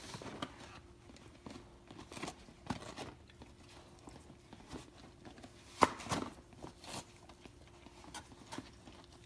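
A Great Dane tearing at a wrapped package of dog biscuits with her teeth: irregular rustles, crinkles and knocks, the loudest about six seconds in.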